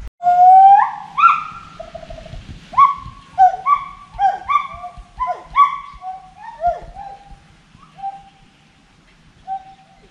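A gibbon singing: a loud rising whoop, then a run of hooting notes that swoop up and drop steeply, about two a second, thinning out to single hoots near the end.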